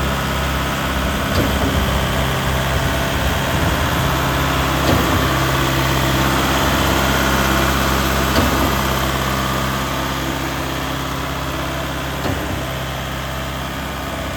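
Deutz BF4M2012 four-cylinder diesel engine of a Putzmeister TK70 concrete pump running steadily at idle. Four sharp knocks come through, about every three and a half seconds.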